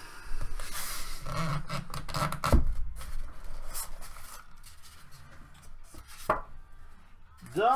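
Styrofoam packing block being handled and pulled apart: foam halves rubbing and scraping against each other, with a sharp knock about two and a half seconds in and another near six seconds as the pieces are set down.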